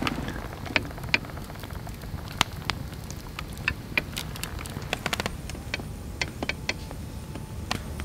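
Heavy rain falling on the camp: a steady low wash with irregular sharp ticks of drops, bunched into a quick run of ticks about five seconds in.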